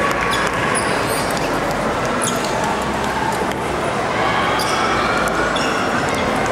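A table tennis ball bouncing a few times at uneven intervals between points, over the steady murmur of a crowd in a large hall.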